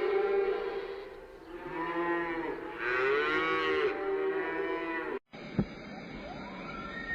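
Cattle mooing: a few long, drawn-out moos that bend in pitch, cutting off suddenly about five seconds in.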